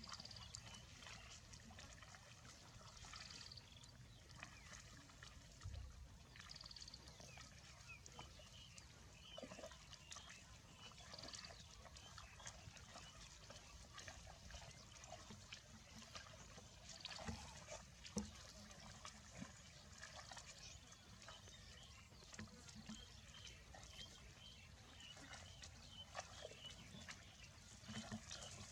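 Faint outdoor ambience: a low steady hiss, with short high chirps every few seconds and scattered light clicks.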